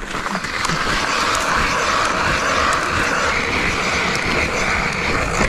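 Hand-cranked ice auger boring through pond ice, its blades grinding and scraping steadily as the handle is turned.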